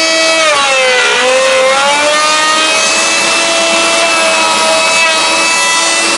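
Bosch router running at full speed, its bit cutting wood. The whine sags in pitch about a second in as the bit takes load, then climbs back and holds steady.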